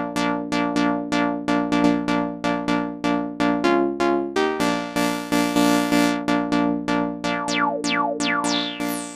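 Synth lead pattern from a Maschine sampler instrument repeating short notes about four times a second while its low-pass filter is adjusted. The tone shifts about halfway through, and near the end each note carries a falling resonant sweep as the filter resonance is turned up.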